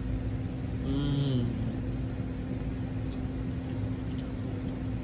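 Steady low hum with a constant tone throughout, under a man chewing a bite of pizza; he gives a short hummed 'mm' about a second in, and a few faint clicks come later.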